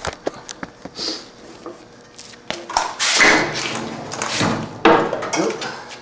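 Knocks and taps of a refrigeration condensing unit's metal frame being set down and shifted on the floor, then two louder, longer stretches of handling noise about halfway through and near the end.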